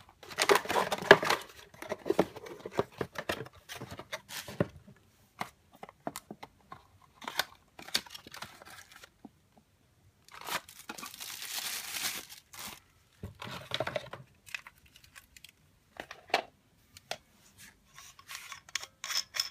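Cardboard packaging and wrapping being handled and opened: irregular bursts of rustling, crinkling and tearing, heaviest at the start and again in a longer stretch about ten seconds in, with scattered sharp clicks and taps between.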